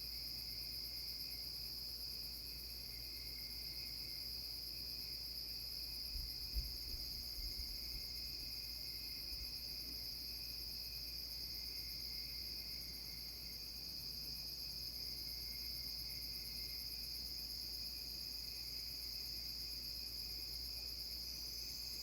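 Steady night-time insect chorus of crickets, a continuous high-pitched trilling at several pitches. A few soft low thumps come about six to seven and a half seconds in.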